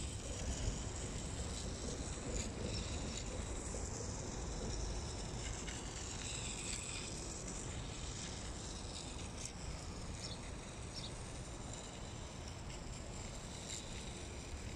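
Outdoor ambience: a steady low rumble with a faint, even high-pitched hiss.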